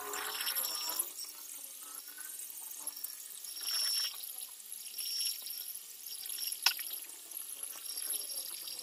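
Small metal lathe turning a round metal bar, with a steady hiss from the cut. A few brief high squeals come and go, and there is one sharp click near the end.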